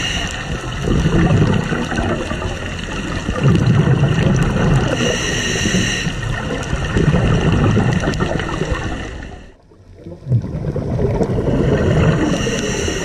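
Scuba breathing heard underwater: a hiss from the regulator on each inhale, coming back about every six seconds, with rumbling, gurgling exhaust bubbles in between. The sound drops out briefly about ten seconds in.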